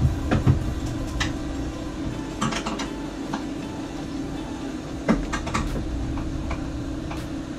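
Irregular clicks and knocks of parts and tools being handled during car-stereo installation work, the loudest near the start and about five seconds in, over a steady low hum.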